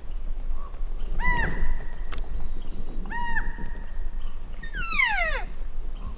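Cow-elk calls: two short arched chirps a couple of seconds apart, then a longer mew that slides steeply down in pitch near the end.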